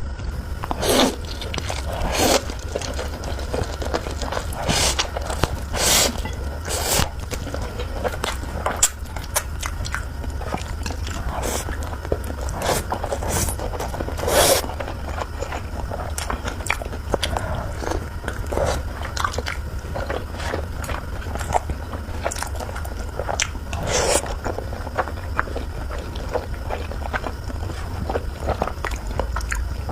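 Close-up eating of spicy noodles: irregular slurps and chewing, a brief sound every second or so, over a steady low hum.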